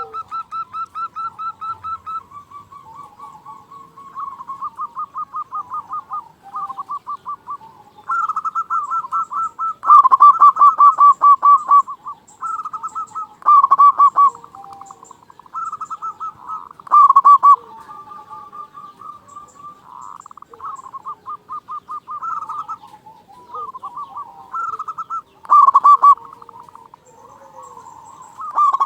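Zebra dove (perkutut) singing: repeated runs of quick cooing notes, about six a second, in bursts of a second or two, loudest about ten seconds in.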